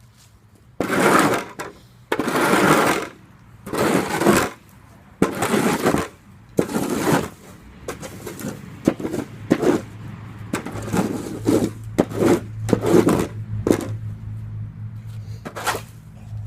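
A shovel blade scraping across a concrete slab in repeated strokes, scooping up dirt and sod, about one stroke every second and a half, then shorter scrapes and knocks. A low steady hum comes in about ten seconds in.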